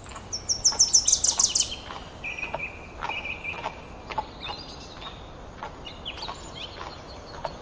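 Songbirds chirping. A quick run of high, falling chirps is loudest in the first two seconds, followed by a short trill and scattered chirps, with faint clicks throughout.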